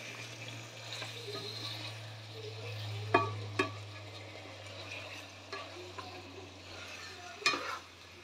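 Beef chunks frying in oil in a nonstick pan while a plastic slotted spatula stirs and scrapes through them, with a soft sizzle throughout. The spatula knocks sharply against the pan a few times, twice about three seconds in and once near the end, over a steady low hum.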